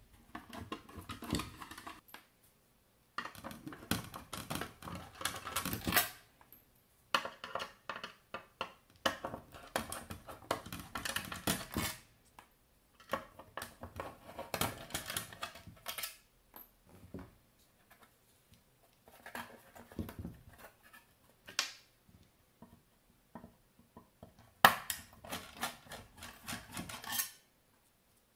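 Screwdriver backing small steel screws out of an aluminium module cover: clicking and scraping of metal on metal in about six bursts of a few seconds each, with short pauses between, and screws clinking as they are set down.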